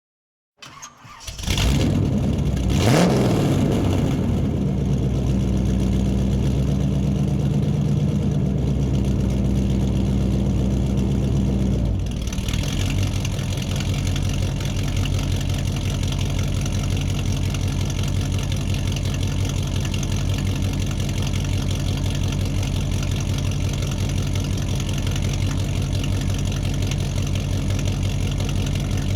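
Muscle car engine cranking and catching about a second in, revved once briefly, then running at a high idle that drops to a lower, pulsing idle about twelve seconds in.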